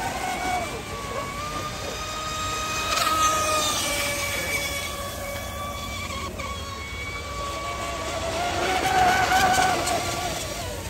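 Brushless electric RC speed boat motor whining at full speed, its pitch sliding up and down as the boat runs past and turns. It grows louder about three seconds in and again near the end.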